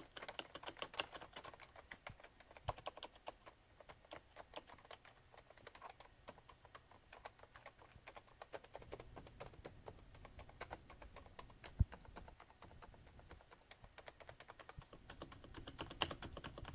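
Fairly hard, fast typing on a Topre Silent keyboard: a dense, continuous run of key strokes. One heavier thump lands about twelve seconds in.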